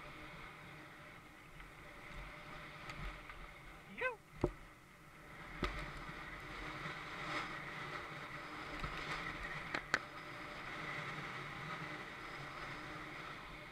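Mountain bike rolling fast down a dirt trail: a steady rush of tyre and wind noise, broken by several sharp knocks and rattles from the bike over bumps, with a brief squeal about four seconds in.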